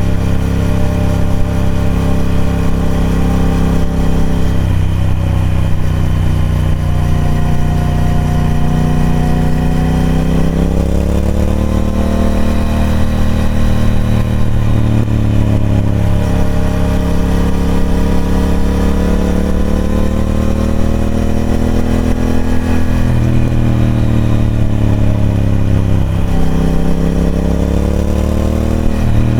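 Triumph Speed Twin 1200's parallel-twin engine running through its stock exhaust under way. The note climbs steadily, then drops suddenly several times, as the bike accelerates and changes up through the gears.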